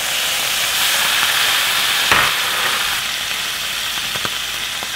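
Chopped roasted red peppers sizzling steadily in hot olive oil and butter in a cast-iron skillet while being stirred and spread across the pan, with a single knock about two seconds in.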